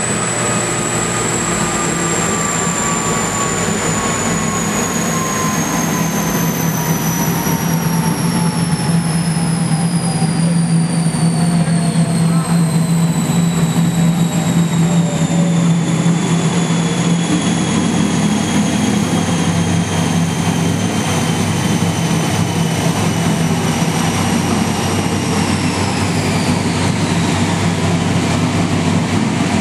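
The 1969 Plymouth Barracuda race car's wheels and drivetrain spin down on a chassis dyno after a full-power pull. Several high whines fall slowly in pitch, then drop away faster near the end, over a steady low drone.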